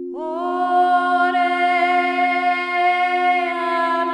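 Sound-healing toning: a voice comes in just after the start and holds one long sung note over a steady drone of low held tones.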